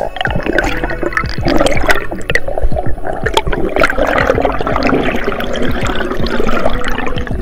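Underwater water noise heard through a camera housing: bubbles and rushing water around a swimming spearfisher, gurgling and uneven, with many small clicks and knocks.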